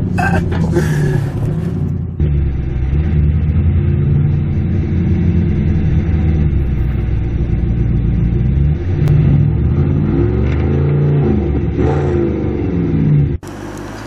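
Audi R8 V8 through an Armytrix aftermarket exhaust, running at low revs, then revved up and down a few times near the end before cutting off suddenly.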